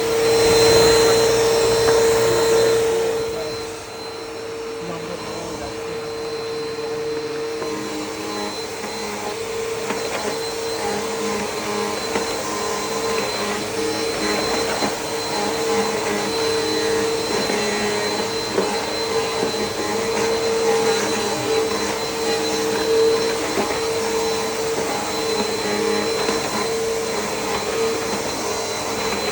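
Upright vacuum cleaner running, its motor giving a steady whine over a rushing hiss; louder for the first few seconds, then slightly lower and even.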